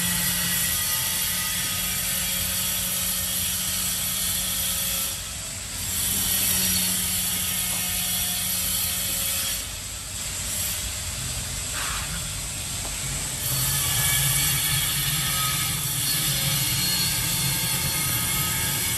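A hand-held sponge rubbed back and forth over glazed ceramic wall tiles, wiping grout off the tile faces: a steady rasping scrub that pauses briefly about five and ten seconds in, with a low hum underneath.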